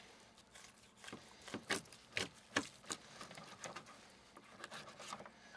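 Faint, irregular clicks and scrapes of a carving knife and fork against a plastic cutting board as a fried rib roast is sliced.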